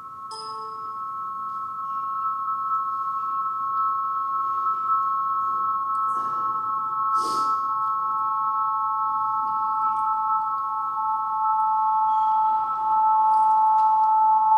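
Sound artwork built from recordings of the inner ear's own emitted tones (otoacoustic emissions), played over loudspeakers: two steady, closely spaced high pure tones fade in, and about halfway a third, lower pure tone enters and swells.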